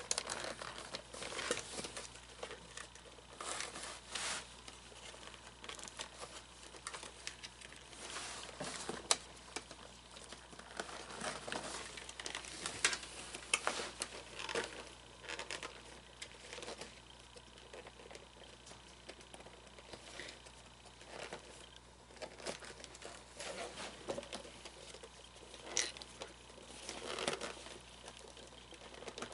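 Cloth rustling and scraping in irregular bursts as tight pants are tugged up over an animatronic figure's body.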